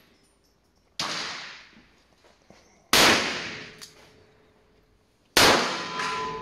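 Three revolver shots, about two seconds apart, each with a long fading tail.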